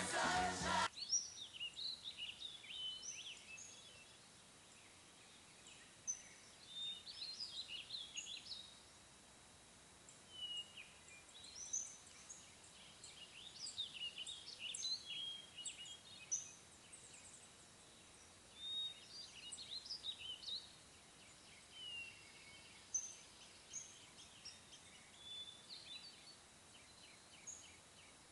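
Music stops abruptly about a second in. After that, songbirds keep up many short, high chirps and whistles, some rising and some falling, over a quiet background.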